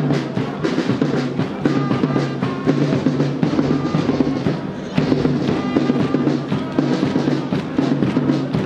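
Marching band drums playing a steady march beat, with bass drum and snare.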